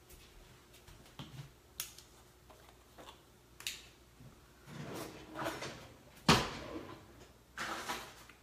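Kitchen handling noises as a chili powder jar and measuring spoon are fetched: scattered light clicks, rustling and scraping a little after four seconds and again near the end, and one sharp knock about six seconds in, the loudest sound.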